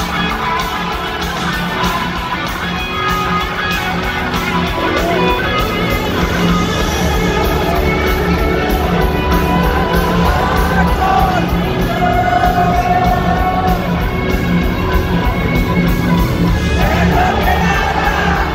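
Live rock band playing electric guitars, keyboards and drums with singing, heard from the crowd in a large reverberant arena.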